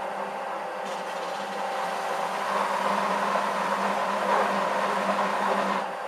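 Bench belt-and-disc sander running, with a cut piece of PVC held against the moving belt from about a second in until near the end. The sanding is louder from about two and a half seconds in.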